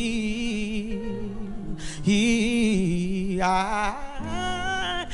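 Male gospel singer holding long, wavering sung notes without clear words, over a steady instrumental accompaniment.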